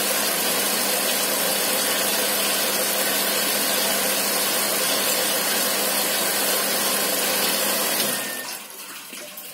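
Water jets hissing over a model car inside the plastic enclosure of a miniature car-wash station, with the steady hum of its small electric pump. Pump and spray cut off about eight seconds in, leaving a much quieter trickle.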